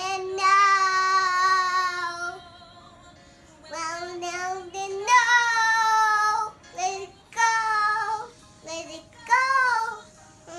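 A toddler girl singing in long held notes, four phrases with short breaths between them.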